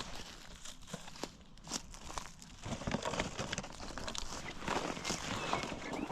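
Footsteps crunching and rustling through dry vegetation, with irregular crackles and snaps.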